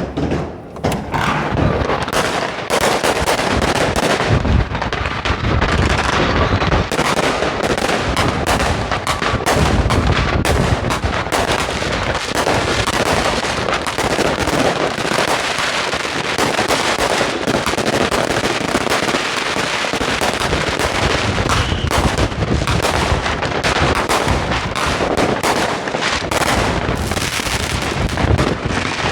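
Dense, continuous barrage of consumer fireworks: overlapping bangs, crackling firecrackers and deeper booms going off from many directions at once.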